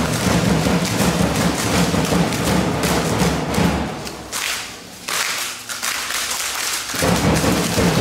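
A drum beating a steady, repeated rhythm under festival music, the low thumps dropping out from about four to seven seconds in and then coming back.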